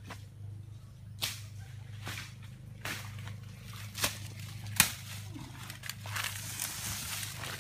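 Dry undergrowth being broken through: about five sharp snaps or cracks of twigs and fronds, roughly a second apart, the last the loudest, then rustling of leaves and dry palm fronds near the end.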